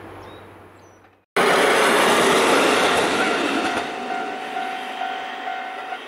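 After a moment of silence, a diesel railcar suddenly starts up loud as it runs past close by on the track, then slowly dies away as it recedes. A steady high squeal rides over the noise for the last couple of seconds.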